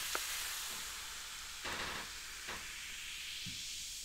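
Carbonated cola fizzing in a glass: a steady high hiss that fades near the end, with a few faint knocks.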